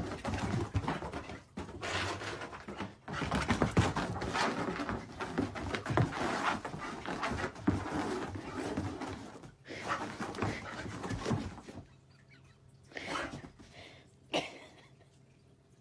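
A large dog scrambling and twisting about on a carpeted floor, making a dense, irregular run of short scuffling sounds that dies down about twelve seconds in, followed by two brief sounds near the end.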